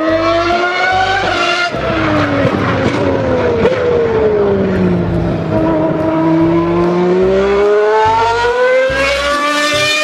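Ferrari Formula 1 car's engine running at high revs. Its high-pitched note drops steadily to a low point about six seconds in, then climbs again as the car picks up speed.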